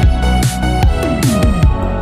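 Background music: electronic dance track with a steady beat and deep bass slides.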